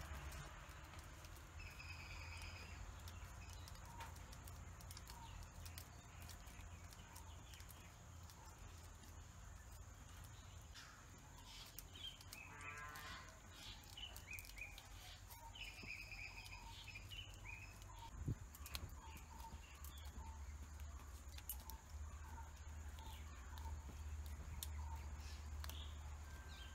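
Faint outdoor ambience: birds chirping and trilling now and then over a low rumble, with a single soft knock about two-thirds of the way through.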